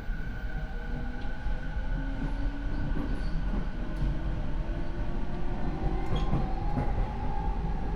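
Interior running sound of a Rinkai Line 70-000 series electric train with Mitsubishi IGBT inverter and MT73 traction motors: the motor and inverter whine climbs slowly in pitch as the train gathers speed, over rumble from the wheels and rails. This car's motors are unusually loud, which the recordist counts as a noisy, abnormal-sounding car.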